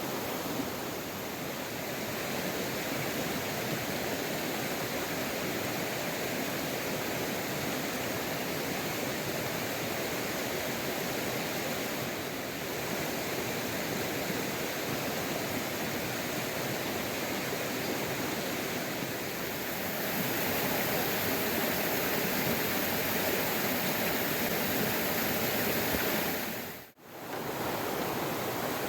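Steady rush of water from a river in spate and heavy rain, an even hiss with no single sound standing out. It grows a little louder about two-thirds of the way through, then drops out for a moment near the end before resuming.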